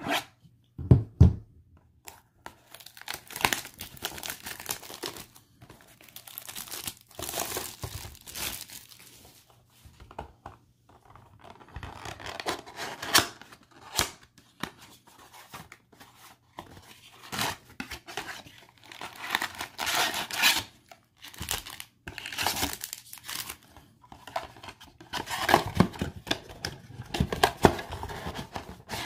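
Plastic shrink wrap being slit, torn and crinkled off a cardboard trading-card blaster box, then the box's cardboard flaps being pulled open, in irregular bursts of tearing and rustling.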